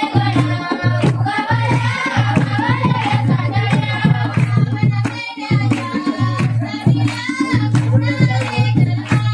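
Konkan folk song sung over a hand drum beating a steady, rapid rhythm.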